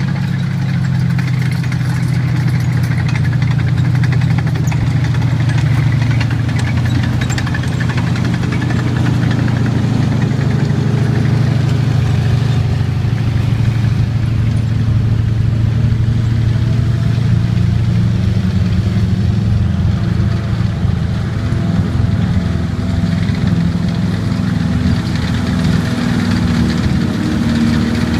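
M4 Sherman tank engine running steadily as the tank drives along a gravel track on its tracks. The engine note rises in pitch over the last several seconds as the tank comes close.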